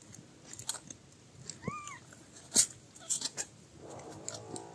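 Newborn kittens nursing on their mother, with scattered soft clicks and smacks and one short, high kitten mew that rises and falls about one and a half seconds in. Near the end a steady held tone with several overtones begins.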